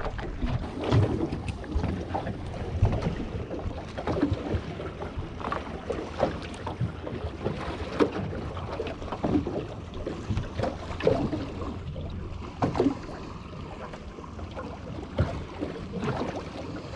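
Small waves slapping irregularly against the hull of an aluminium boat drifting on open ocean, with a low wind rumble on the microphone.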